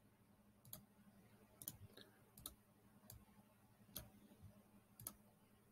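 Faint computer mouse button clicks, seven or eight of them at irregular intervals, against near silence.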